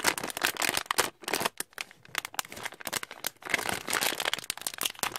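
Shiny plastic-foil toy blind bag crinkling as it is handled and torn open by hand, a dense run of irregular crackles.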